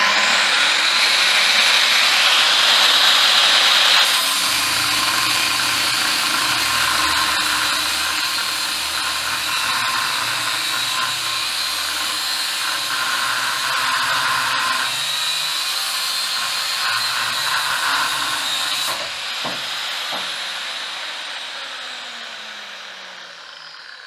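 Large Makita angle grinder running at free speed, then grinding metal from about four seconds in until about 19 seconds. It is then switched off and spins down with a falling whine that fades near the end.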